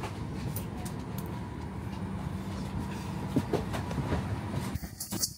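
Steady low rumble of airliner cabin noise with a faint low hum, scattered light clicks and rubs over it, and a brief drop in level near the end.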